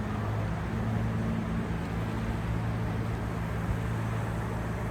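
A steady low engine hum over a constant wash of sea noise.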